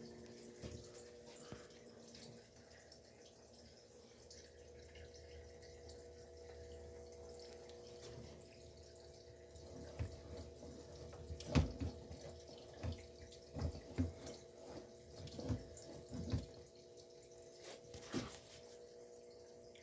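Steady mains-frequency electrical hum from lit neon signs, with a scattered run of soft knocks and taps in the second half.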